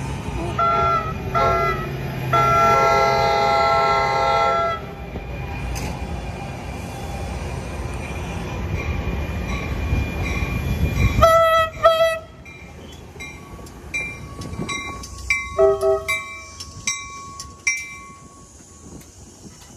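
NJ Transit commuter train sounding its horn as it approaches: two short blasts, then a long one. The train's rumble grows louder, followed by two short horn toots about eleven seconds in and high squeals from the wheels and brakes as it pulls past.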